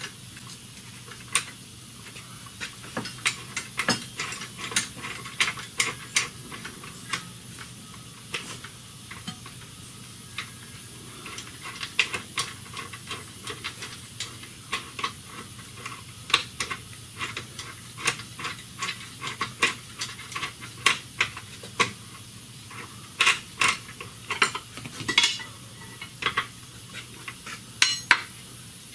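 Irregular sharp metallic clinks and taps of a wrench against a steel nut, bolt and the car's subframe as the nut is held and the bolt worked in, some coming in quick clusters.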